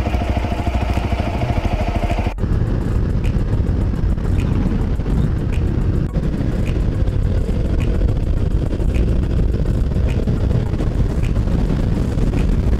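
Honda CRF250L single-cylinder motorcycle being ridden, engine running under heavy wind rumble on the microphone. About two seconds in the sound breaks off abruptly and picks up again as steady running on the open road.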